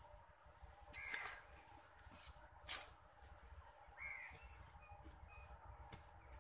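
Crows cawing twice, about a second in and again about four seconds in, over sharp chops and scrapes of a hand hoe's metal blade digging into dry earth; the loudest sound is one hoe strike near the middle.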